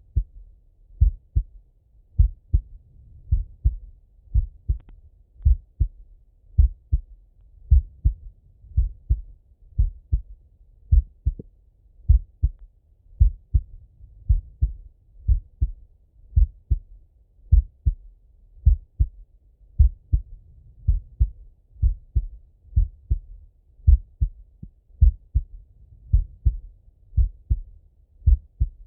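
A man's slow, steady heartbeat heard through a stethoscope: a regular lub-dub, a loud low thump followed by a softer one, a little under one beat a second (about 55 a minute).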